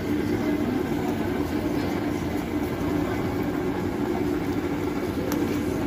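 Steady humming drone of an induction cooktop running under a pot of wontons at a rolling boil, with a faint click about five seconds in.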